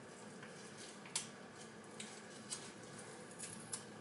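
Faint handling noises from hands working with small objects: about five light, sharp clicks spread over a few seconds.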